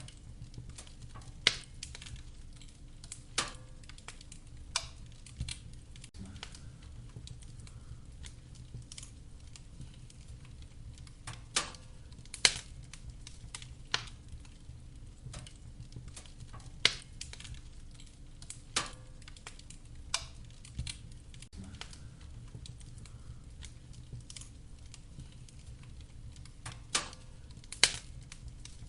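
Wood fire crackling in a fireplace: sharp, irregular pops and snaps of burning firewood over a low, steady rumble of the flames.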